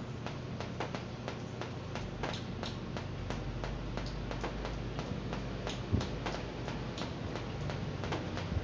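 Irregular light clicks and taps from hands twisting insulated wire leads together, over a steady low background hum.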